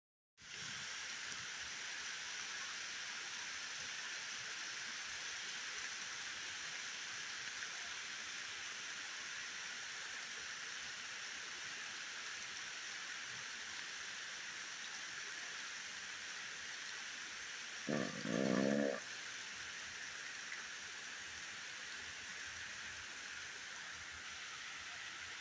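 Steady rain falling on the forest canopy and ground, an even hiss. About two-thirds through, a brief low-pitched sound lasting about a second cuts in over it.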